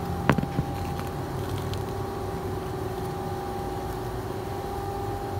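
Steady mechanical hum with a few constant tones in it, and a sharp click about a third of a second in, followed by a softer one.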